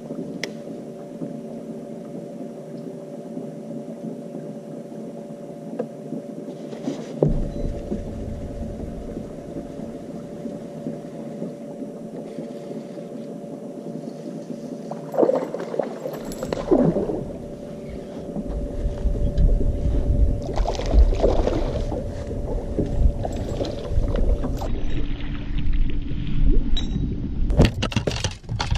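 Steady hum of a small electric motor on a fishing boat, holding a few fixed tones, which shift to a different pitch near the end. There are a few knocks along the way, and from about two-thirds through, wind buffets the microphone with a low rumble.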